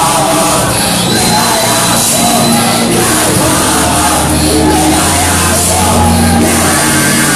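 Loud live church worship music: a band with a deep, moving bass line, and the congregation singing along.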